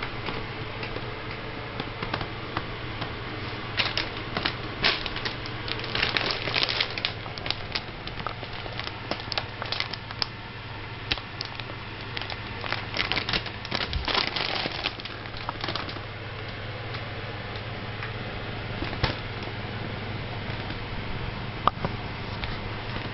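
Fabric pet bed rustling and crackling as an animal moves about inside it, with many small sharp clicks that cluster in two busier stretches, about four to seven seconds in and again around twelve to fifteen seconds. A steady low hum runs underneath.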